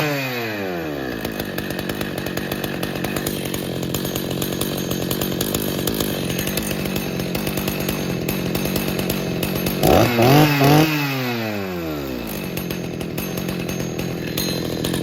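A 1983 Husqvarna 61 two-stroke chainsaw engine dropping from a rev to a steady idle, then three quick throttle blips about ten seconds in before it settles back to idle. The owner judges it might be running a little rich on the high side.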